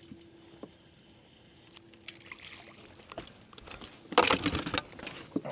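A hooked fish being landed into a bass boat: a short, loud burst of splashing and clattering about four seconds in, after a quieter stretch with a faint steady hum and small clicks.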